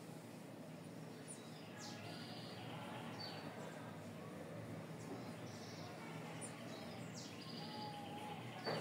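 Birds chirping and calling now and then with short, high notes over a steady background hiss, and a brief whistled note late on. A sharp click at the very end.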